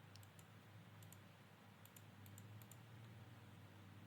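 Faint, sparse computer clicks, some in quick pairs, over a low steady hum; otherwise near silence.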